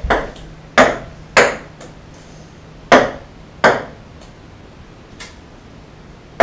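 Ping-pong ball bouncing on a hard wooden surface: a series of sharp, light clicks, the loudest in pairs about two-thirds of a second apart, with fainter ones trailing off between.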